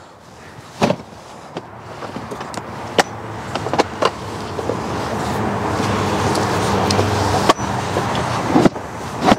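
Scattered clicks and knocks of a doll being handled into a rotating convertible car seat, over a rushing noise with a low hum that grows steadily louder for several seconds and cuts off sharply near the end.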